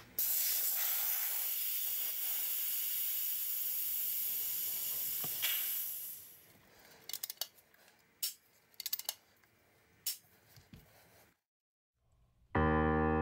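High-pressure air hissing steadily out of an FX Bobcat MK1 PCP air rifle as a fitting is loosened with a spanner, venting the rifle's air before stripdown. It fades out after about six seconds. A few light handling clicks and knocks follow, and piano music begins near the end.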